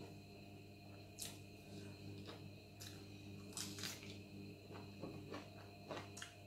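Close-miked eating by hand: rice and a cucumber slice scooped from a plate, bitten into and chewed, giving several short crisp clicks and crunches over a faint steady hum.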